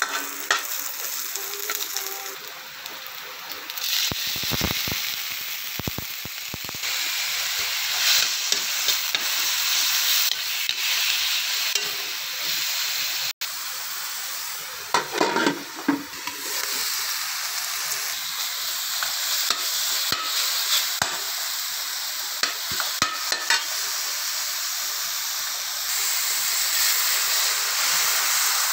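Chopped garlic, onion, ginger and then pork pieces sizzling as they are sautéed in hot oil in a wok, with a steady hiss. A metal utensil knocks and scrapes against the pan now and then as the food is stirred.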